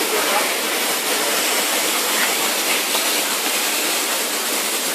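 Electric arc welding along a seam: the arc gives a steady, even hiss.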